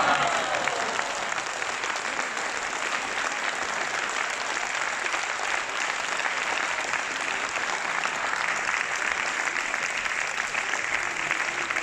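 Spectators applauding steadily: the applause that greets the winning point of a deciding fifth set in table tennis.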